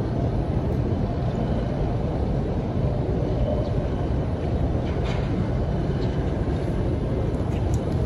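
Steady low outdoor rumble, even in level throughout, with a few faint ticks and no clear gulps or burps.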